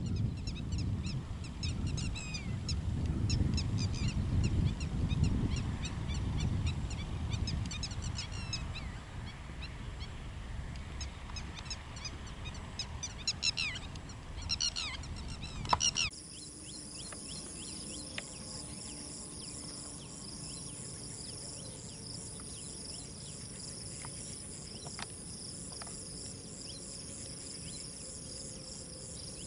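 Wetland ambience: small birds chirping over and over above a low rumble. About halfway through, the rumble drops away and a steady, high-pitched insect chorus takes over, with an occasional bird chirp.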